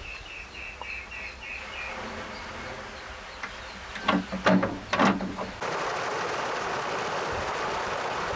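A few sharp clicks and short buzzes as the push-button starter of a farm pump motor is pressed. Then, about halfway through, a sudden steady rush of water gushing with force from the pump's outlet pipe into a channel. At the start, a high chirp repeats about four times a second for two seconds.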